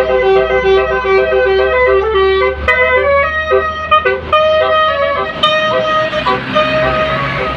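Bus 'telolet' multi-tone musical air horn playing a tune in stepped notes, over a low engine rumble for the first few seconds.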